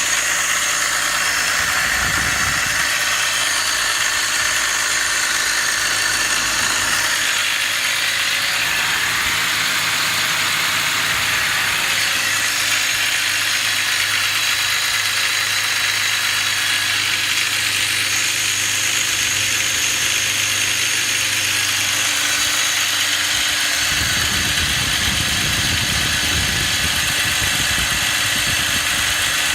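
BMW E39 530i's 3.0-litre straight-six idling steadily, with a steady high-pitched tone over the running. The owner cannot place these engine noises and asks what they are. A low rumble joins in near the end.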